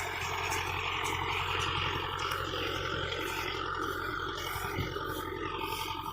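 Mahindra Yuvo 475 tractor's diesel engine running steadily under load, driving a baler, with the baler's mechanism adding a dense mechanical clatter.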